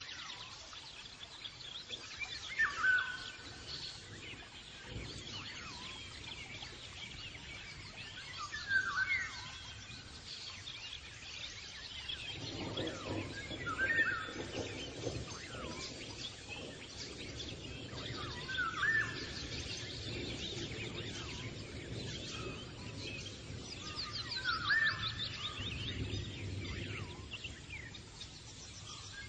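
Birds calling: one bird repeats a short, loud call about every six seconds over a background of thinner, higher chirps.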